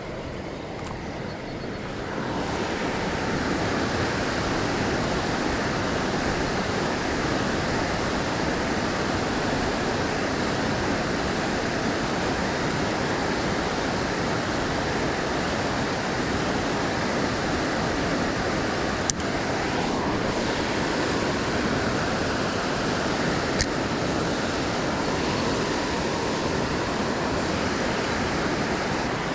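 Fast, flooded river water rushing steadily, a constant hiss-like rush that gets louder about two seconds in. Two sharp clicks stand out above it, one a little past the middle and one a few seconds later.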